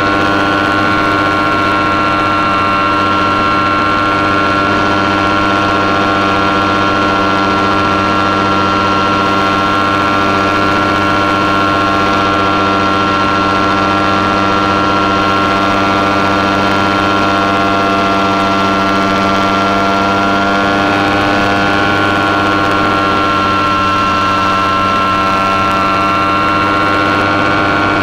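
Radio-controlled model plane's motor and propeller running steadily in flight, picked up by the camera on board; the pitch dips slightly near the end.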